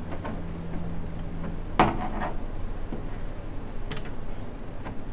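Plastic clicks and clatter as the lamp cartridge access panel comes off the back of a rear projection TV. There is one loud clack about two seconds in with a few quick rattles after it, then a sharper click about two seconds later.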